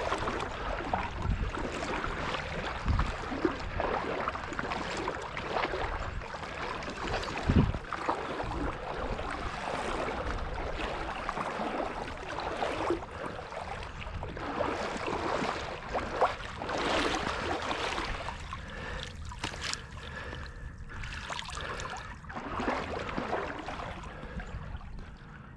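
Water sloshing and splashing, an uneven run of small splashes and trickles in shallow water.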